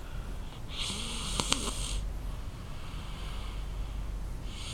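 Loud snoring: one rasping, hissing breath about a second in, lasting just over a second, and the next one starting near the end. The snoring is unusually loud for the sleeper's young age, enough that the owner thinks a doctor should check it.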